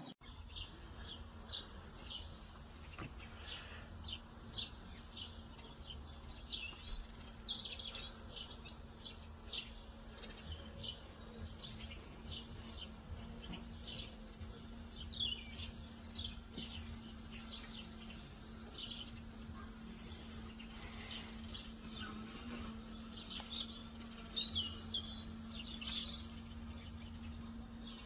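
Small birds chirping outdoors, with many short high chirps coming in clusters, over a steady low hum.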